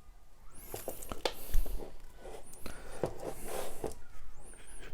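Handling noise: a plastic bag rustling and crinkling with a few short high squeaks, and a dull knock about a second and a half in.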